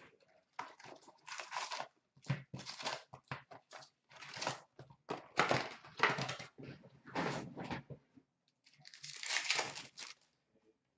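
Sealed hockey card packs being pulled from their box and handled, their wrappers crinkling and rustling in irregular bursts.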